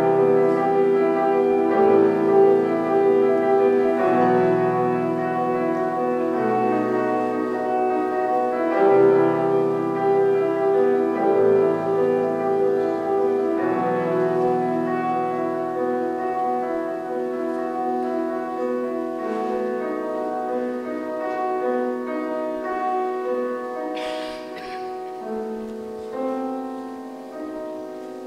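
Slow, lyrical piano music with sustained chords. The bass changes about every two seconds, and the music grows gradually quieter toward the end.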